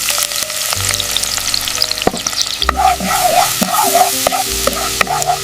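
Food sizzling and spitting as it fries in a hot pan, with a steady crackling hiss and occasional pops. Soft background music with low bass notes plays underneath.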